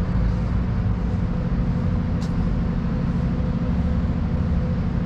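Steady low engine rumble with a faint steady hum over it, and a brief high chirp about two seconds in.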